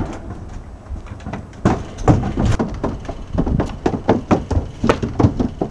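Footsteps thudding down wooden deck stairs: a quick, uneven run of knocks at about four a second, starting a little under two seconds in.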